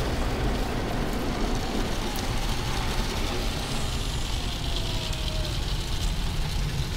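Automatic car wash heard from inside the car's cabin: a steady rushing of water jets and spinning wash brushes against the windshield and bodywork, with a low rumble.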